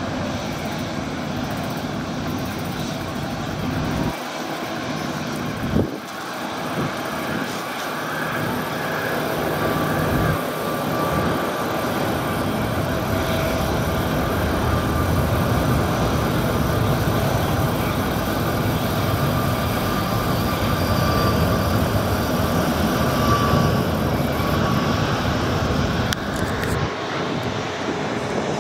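Jet engines of a Delta Air Lines Airbus A330-300 running on its landing roll along the runway. A steady, rushing engine noise grows louder partway through, with a faint high whine held for several seconds in the middle.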